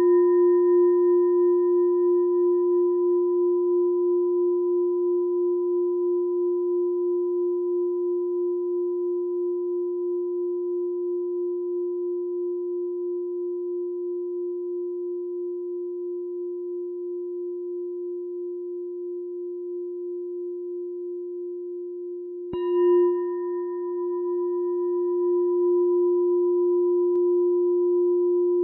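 Meditation bell ringing with a low, wavering tone that slowly fades. It is struck again about 22 seconds in and rings on.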